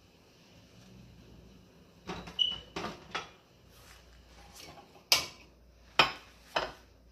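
Kitchen utensils and a saucepan knocking against a gas stove's grates: a cluster of clatters about two to three seconds in, then three sharp clanks near the end.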